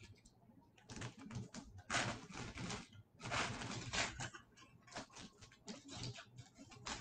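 Foil wrapper of a hockey-card pack crinkling and tearing as it is ripped open by hand, in irregular rustling bursts, the loudest about two to four seconds in.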